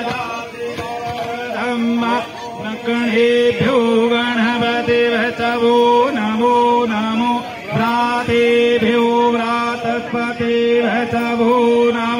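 Devotional Hindu chant sung over music, with a steady held drone note that breaks off and returns every couple of seconds beneath the sung melody.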